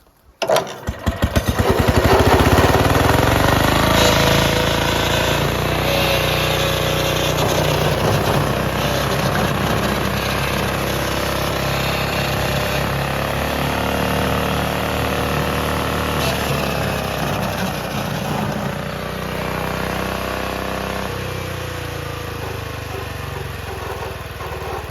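Tuned-up lawn mower engine starting about half a second in: its separate firing beats speed up within a couple of seconds into a loud, steady high-revving run with a slightly wavering pitch. It eases off a little near the end.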